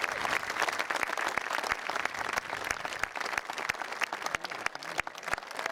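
Crowd applauding: many hands clapping at once, easing a little near the end.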